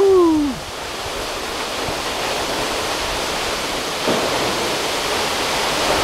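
A high waterfall drops into a pool below: a steady, even rush of falling water. A short voiced sound trails off in the first half-second.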